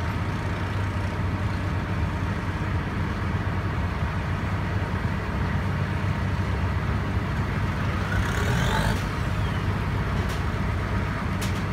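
A motorboat's engine running steadily, a continuous low hum heard from on board.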